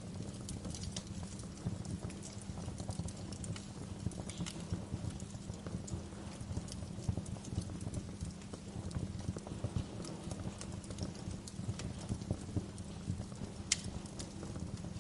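Wood fire crackling in a fireplace: a steady low rumble of burning with frequent small pops and snaps, and one sharper pop near the end.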